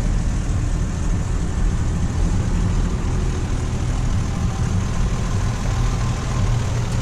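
1953 Studebaker pickup's six-cylinder engine idling steadily, a low even hum, warmed up.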